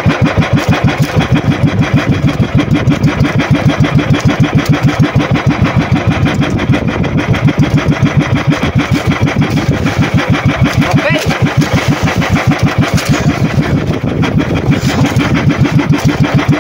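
Outrigger fishing boat's engine running steadily under way, a fast, even thudding of about six or seven beats a second.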